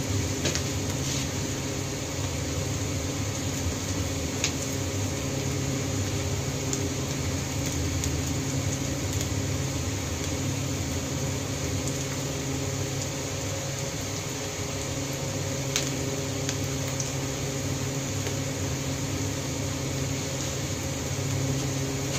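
Wok of sliced onion and chili cooking over a gas burner: a steady low hum under an even hiss, with no separate knocks or stirring.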